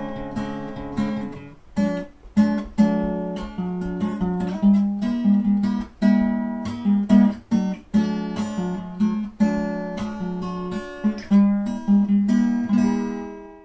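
Background music: an acoustic guitar playing quick plucked notes and strums, dying away at the end.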